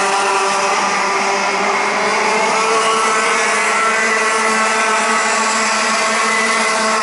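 Several Rotax 125 cc two-stroke kart engines running at racing speed, their overlapping notes shifting in pitch as the pack goes through the corners and down the straight.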